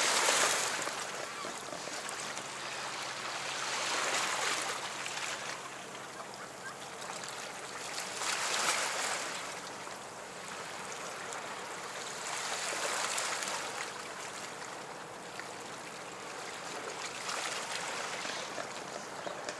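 Small harbour waves washing against a rock seawall, the wash swelling and fading about every four to five seconds.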